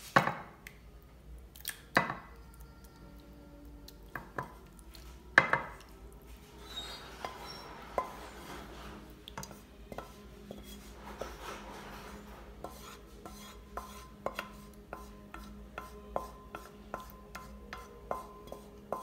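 Wooden spatula scraping thick vegetable pisto out of a frying pan into a glass oven dish, with sharp knocks of utensil and pan against the glass. The loudest knocks come at the start, about two seconds in and about five seconds in, then many lighter taps and scrapes follow.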